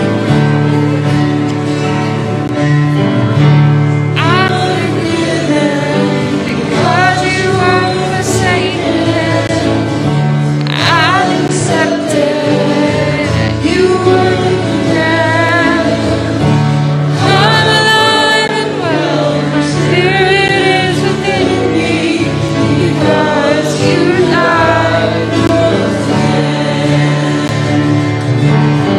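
Live worship band performing a gospel song: a woman and men singing together over strummed guitars.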